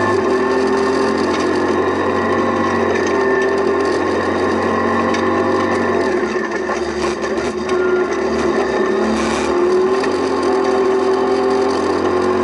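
Rally car engine running hard, heard from inside the cabin while driving a gravel stage. The revs dip about six seconds in and climb again near ten seconds, with rattles from the car over the gravel.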